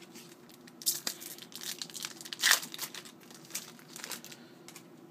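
Trading card pack wrapper being torn open and crinkled by hand, in irregular crackly bursts with the loudest rip about two and a half seconds in.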